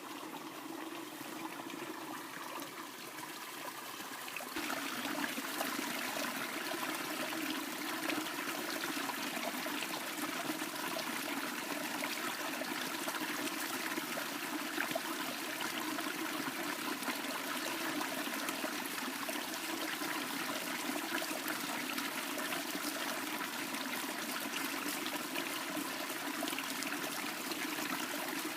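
Steady rush of running water, like a stream, which gets louder about four and a half seconds in and then holds steady.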